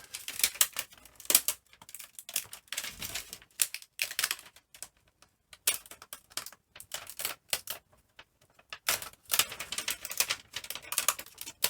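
Irregular sharp clicks and taps of hands and small tools working on the plastic and metal parts of an opened laptop, in quick scattered clusters with brief pauses.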